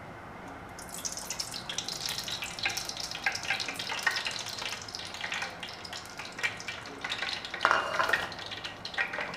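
Cooking oil poured into a nonstick pot over a gas burner, then crackling and spitting in the pot with many small, sharp pops, starting about a second in and briefly louder near the end.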